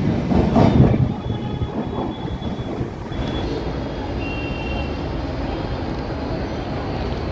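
Last coaches of a passing express train rattling over the rail joints, dying away within about the first second. A steady low rumble follows.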